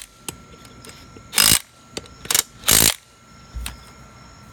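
DeWalt 20-volt cordless impact wrench fired in three short bursts about a second and a half to three seconds in, snugging the lug nuts on a tractor wheel, with light clicks of tool and metal between.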